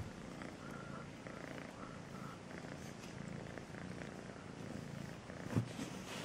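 Grey-and-white tabby kitten purring steadily, with one short thump near the end.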